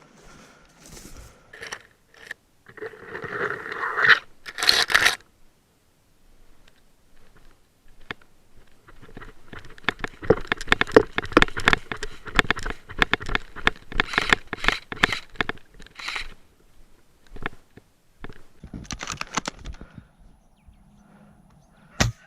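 Dry leaves and brush crunching and rustling underfoot as a person moves through undergrowth, in irregular bursts that are densest in the middle.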